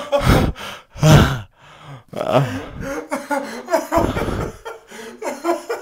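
A man laughing breathlessly right at the microphone, with three loud, breathy bursts among smaller laughs.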